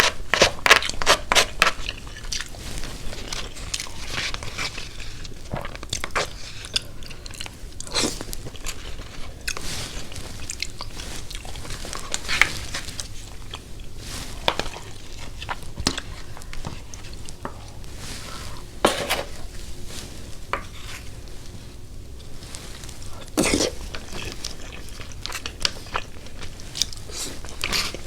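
Person eating close to the microphone: mouth-sounds of chewing with crunchy bites, a quick run of crisp clicks in the first two seconds, then scattered louder crunches.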